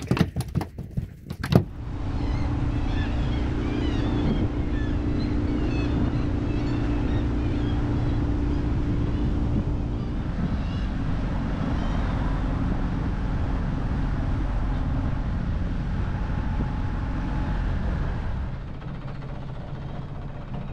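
A few sharp knocks, then a small boat's engine running steadily at low speed. It grows quieter near the end.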